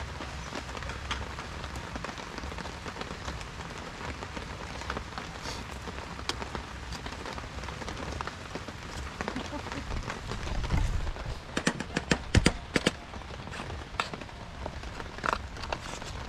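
Steady hiss of a two-burner portable camping gas stove with food cooking on it, and a cluster of sharp knocks about twelve seconds in.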